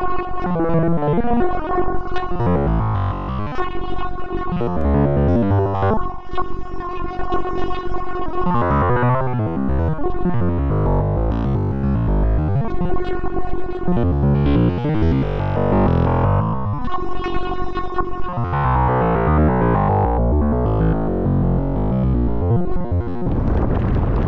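Electronic synthesizer music with a keyboard line and a repeating pattern. About a second before the end the music stops and wind rushing on the microphone takes over.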